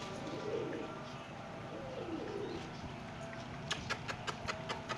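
Domestic pigeons cooing, a few low, falling coos in the first half. Near the end comes a quick run of sharp clicks, about six a second.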